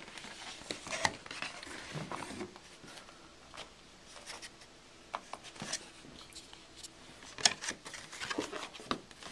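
Stiff cardboard packaging being handled: a box and its flaps sliding and rubbing against each other, with scattered light taps and clicks, a sharper click about seven and a half seconds in.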